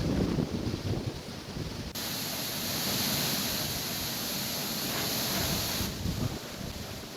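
Storm wind gusting and buffeting the microphone, a rough, rumbling rush. From about two to six seconds in it gives way to a steadier hiss.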